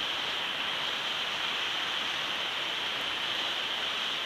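Steady, even hiss picked up by the outdoor nest-cam microphone, with no distinct calls or knocks.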